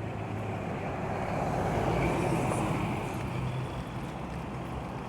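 A motor vehicle's engine running with a low hum. It grows louder about a second and a half in, then eases off.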